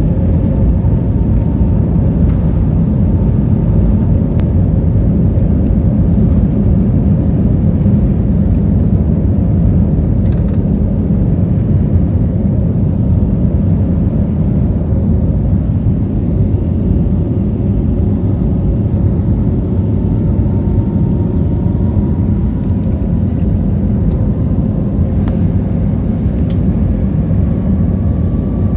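Inside a jet airliner's cabin during the takeoff roll: the engines running at high thrust with a loud, steady rumble, and a faint whine that slowly rises in pitch as the plane gathers speed down the runway.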